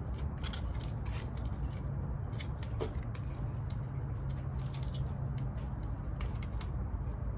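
Irregular light clicks and scratches of a dryer vent hood's louvers being cleaned of lint by hand, over a steady low hum.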